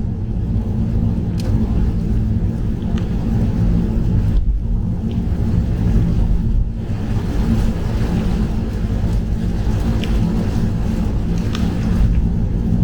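Cabin noise of a Mazda3 1.5-litre AWD car at expressway speed in heavy rain, heard through a slightly opened window: a steady low rumble of road and engine noise under a hiss of wet tyres and rain, with a few faint sharp ticks.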